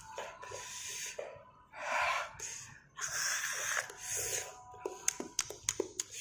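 A man gasping and hissing air in and out through his mouth in several noisy breaths, the reaction to the burn of hot chili sambal, with a few sharp mouth clicks near the end.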